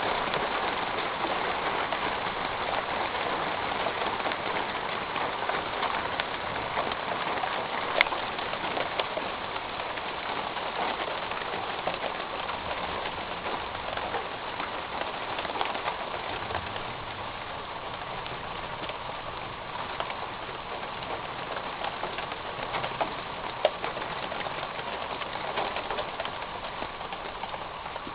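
Rain drumming on a metal roof: a dense, steady patter of drops that eases slowly. A single sharp tick stands out about eight seconds in.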